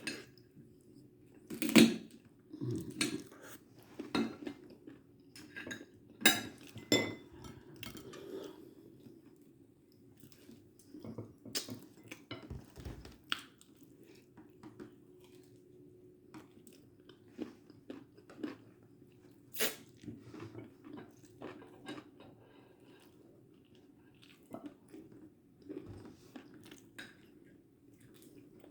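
A person chewing and biting food, with crunches and irregular clinks of dishes and cutlery.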